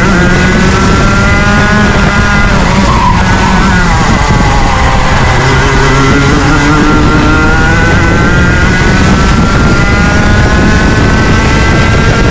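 Rotax Junior 125cc two-stroke kart engine running hard at racing revs. It drops in pitch about three seconds in, then climbs steadily as it winds back up until near the end.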